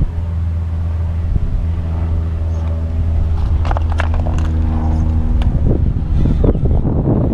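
Axial UMG10 RC rock crawler's Hobbywing AXE brushless motor and geared drivetrain humming at a steady low pitch as it crawls over rock. A few sharp clicks and scrapes from tyres on the rock come midway, and there is rougher scraping near the end.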